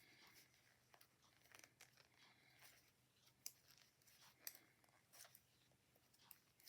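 Faint clicking and rustling of knitting needles and yarn during hand knitting, with a few sharper needle clicks around the middle.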